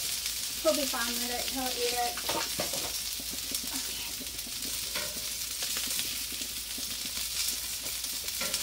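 Burgers and buns sizzling on a Blackstone steel flat-top griddle, a steady frying hiss. A metal spatula scrapes and taps on the cooktop a few times.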